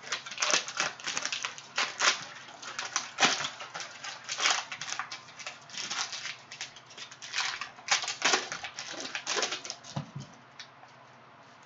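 Clear cellophane wrapper of a Panini Prizm basketball cello pack crinkling in rapid crackles as it is handled and opened by hand.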